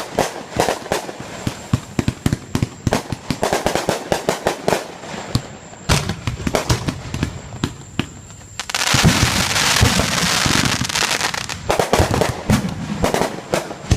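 Fireworks going off: many sharp, irregular bangs and pops, with a loud, dense hissing crackle from about nine to eleven and a half seconds in.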